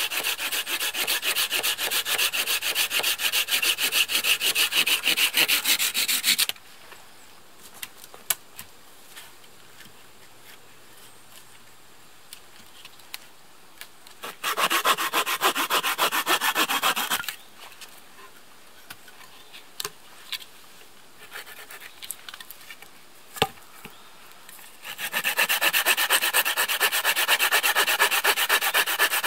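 Folding hand saw cutting through dry wooden poles with quick back-and-forth strokes, in three bouts: one that stops about six seconds in, a short one around halfway, and another starting near the end. Between the bouts, light knocks and rustles of wood, with one sharper knock.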